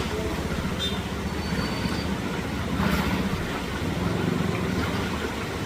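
A motor vehicle engine running close by, a steady low rumble, with a short hiss about three seconds in.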